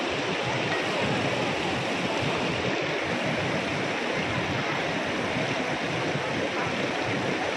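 Mountain stream rushing over rocks and small cascades: a steady rush of water.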